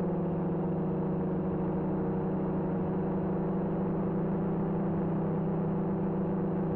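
Electric motor and propeller of an FPV model aircraft running at steady throttle, a constant hum with a few steady overtones, picked up by the onboard camera.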